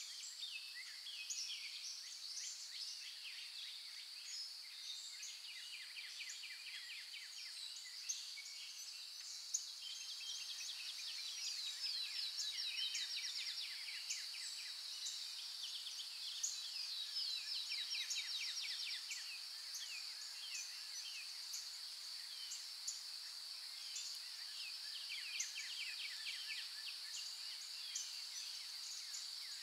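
Outdoor natural ambience: several birds chirping and trilling over a steady, high-pitched insect drone.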